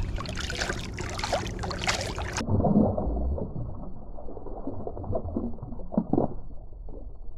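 Water splashing and crackling as a tagged redfish is let go by hand. About two and a half seconds in, the sound suddenly turns muffled and dull, with low gurgling and a few bumps, as heard with the microphone under the water.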